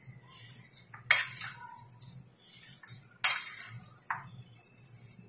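Metal spoon stirring mashed potato filling in a ceramic bowl: soft scraping with two sharp clinks of spoon on bowl, about a second in and just after three seconds, and a brief ring near the end.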